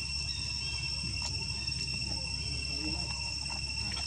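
Insects trilling steadily in one unbroken high-pitched note, over a low hum with a few faint clicks.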